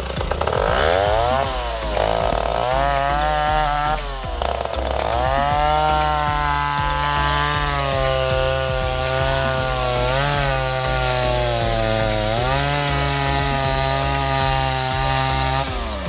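Two-stroke chainsaw revving up, then cutting into the base of a durian tree trunk, with the engine held high and steady under load. It dips in pitch briefly a couple of times and stops right at the end.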